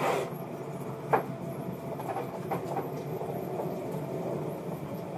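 Sped-up audio of a curry comb being scrubbed in circles over a horse's coat: a fast, even scraping rustle with faint repeated ticks and one sharp knock about a second in.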